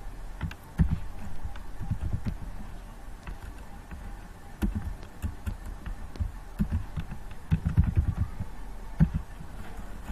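Computer keyboard being typed on: irregular key clicks and low thumps at an uneven pace, over a steady low hum.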